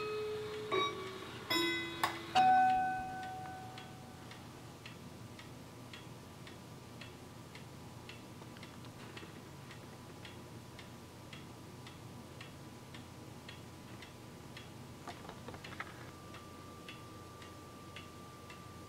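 Kieninger mechanical clock movement in a Howard Miller wall clock ticking steadily, about two ticks a second, its pendulum swinging on its own now that the misaligned suspension has been corrected. Near the start, several ringing metal notes of different pitches from the clock's chime rods.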